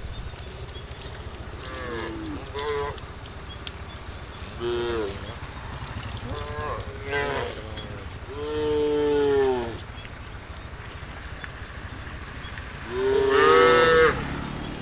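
A herd of cattle mooing: several short moos in the first half, a longer, louder moo about eight seconds in, and the loudest one near the end, over a steady low background noise.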